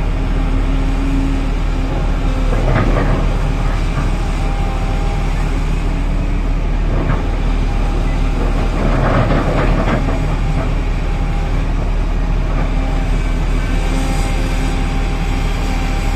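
Volvo EC950E crawler excavator's diesel engine running steadily under load, with rock crunching and scraping as the bucket digs into the rock pile. The rock noise is loudest about three seconds in and again around nine to ten seconds in.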